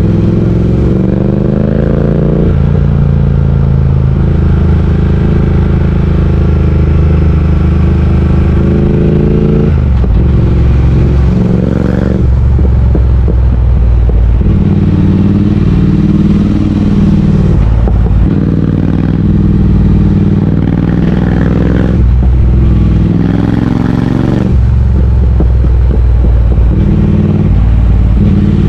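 Triumph Speed Twin 1200's parallel-twin engine running under way, its pitch climbing with the revs and dropping suddenly several times, and swinging up and down in the middle stretch as the throttle is opened and closed.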